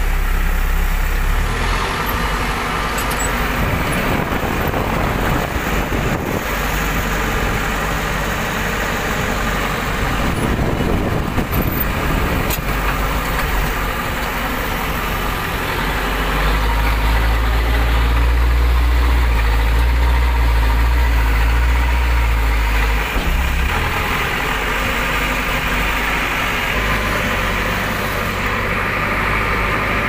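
Terex TLB 740S backhoe loader's diesel engine running, heard from inside the cab as the machine moves. It grows louder, with a heavier low hum, for several seconds past the middle, then settles back.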